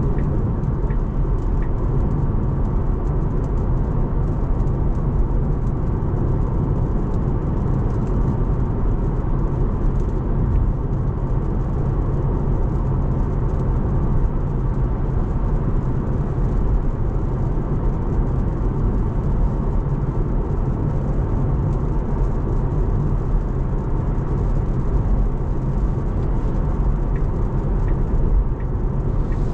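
Steady road noise inside the cabin of a Tesla electric car driving at speed on a wet road: tyre and wind noise with no engine sound, and a few faint ticks.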